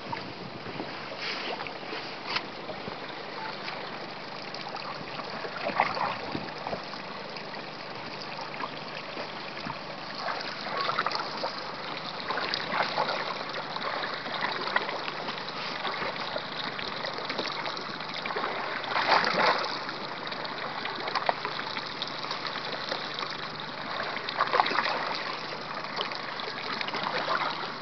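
Small waves lapping and slapping against the side of a drifting boat, with a louder splash every few seconds.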